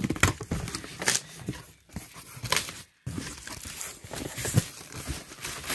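Cardboard box being opened by hand: flaps and a cardboard insert scraping and rustling, with tissue paper packing crinkling. Irregular handling noises, broken by a short pause about three seconds in.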